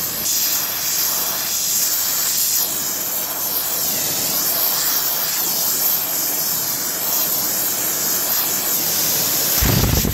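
Gas torch flame hissing steadily against the steel of an FMF Gnarly two-stroke expansion chamber that is being heated under pressure to push out a dent. About nine and a half seconds in, the overheated, over-pressurised pipe splits open with a sudden loud blast of escaping air that rushes on.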